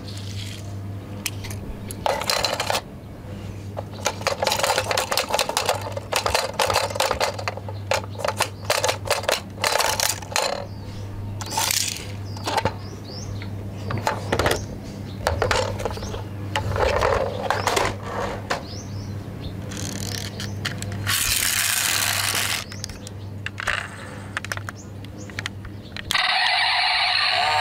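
Irregular plastic clicking and clattering from a toy car-carrier truck and small toy cars being handled, its ramp and cars knocking together, over a steady low hum. Music starts near the end.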